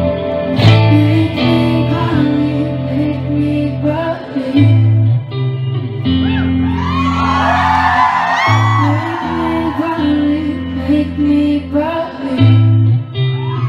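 Live band music with a female lead vocal over electric guitar and low sustained bass notes that change every second or two. In the middle, a swell of many voices from the audience joins in.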